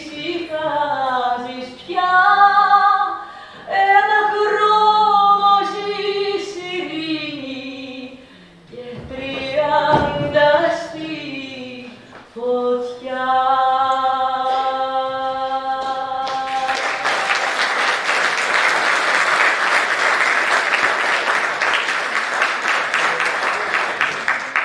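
A woman singing a song that ends on a long held note about 16 seconds in, followed by the audience applauding.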